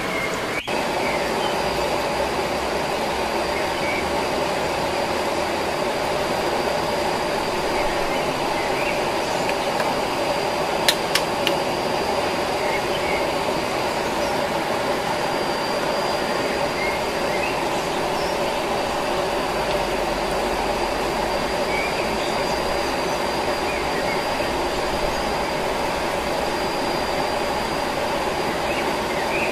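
Steady rushing of a waterfall, with a thin, steady high whine above it and a few faint short chirps. There are two sharp clicks about eleven seconds in.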